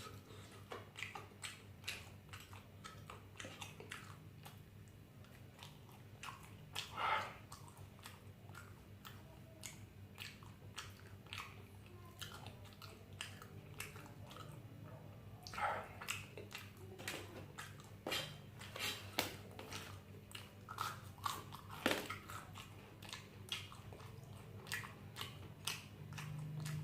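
A person chewing and biting food, with many small wet clicks and crunches and a few louder mouth sounds, about 7, 16 and 22 seconds in.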